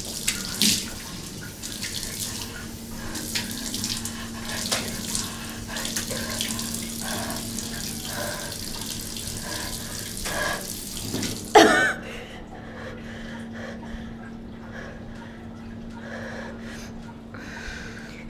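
Water running from a tap into a sink. It stops about twelve seconds in, just after a short, loud sound that bends in pitch.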